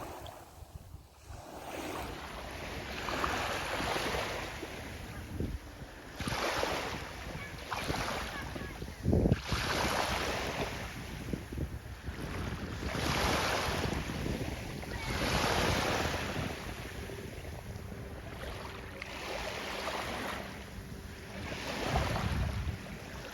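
Sea water rushing and splashing in repeated surges every second or two, with wind buffeting the microphone and a sharp splash about nine seconds in.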